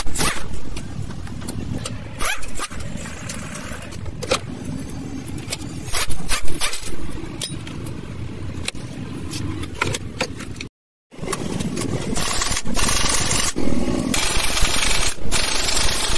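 Sharp knocks and clanks as a car's lower control arm and its bolts are worked on, then after a brief dropout about eleven seconds in, a pneumatic impact wrench running steadily on a control-arm bolt.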